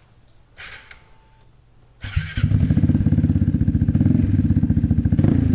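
Vespa GTS 300's single-cylinder four-stroke engine cranks briefly and catches about two seconds in, then idles with a fast, even, bassy exhaust beat through a Remus exhaust with its silencer insert removed.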